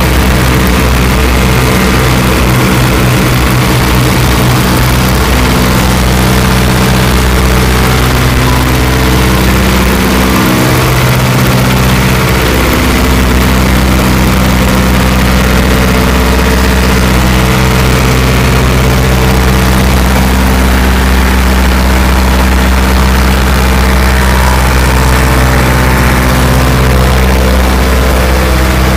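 The Ford Trimotor's radial engines and propellers running loud and steady in flight, heard from inside the cockpit, with a pulsing beat near the start and the drone shifting slightly in pitch.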